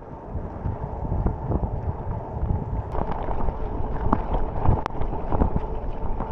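Wind buffeting the microphone over the rumble of a bicycle rolling on a gravel track, with scattered small clicks and rattles.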